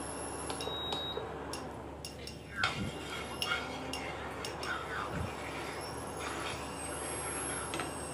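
Wooden spatula knocking and scraping in a non-stick pan of heating oil, with a few sharp clinks in the middle, the loudest about two and a half seconds in. A steady hum from the induction cooktop runs underneath.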